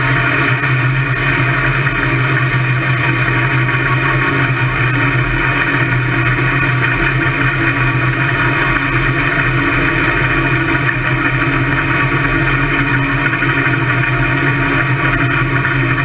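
Top alcohol dragster engine running steadily at low revs, heard from on board, with no revving.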